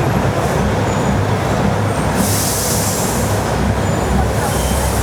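Matheran Hill Railway narrow-gauge toy train standing in the station, its diesel locomotive running steadily with a low hum, and a hiss of air from the brakes about two seconds in and again near the end.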